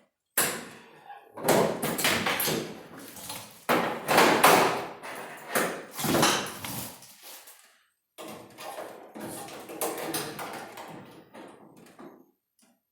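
Sheet-metal quarter panel knocking and rattling as it is handled and pushed into position against the car body: about five loud knocks, each trailing off in a second or so of clatter.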